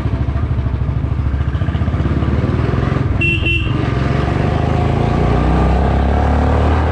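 Motorcycle engine running under way with a fast low pulse, growing a little louder as it goes. A vehicle horn beeps once, briefly, about three seconds in.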